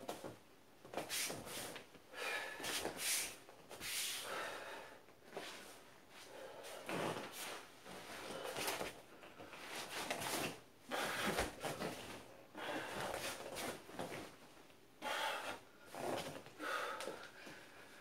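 A man's forceful mouth sounds made with qigong martial-arts movements: sharp hisses and puffs of breath in an irregular run of short bursts, some carrying a brief voiced tone.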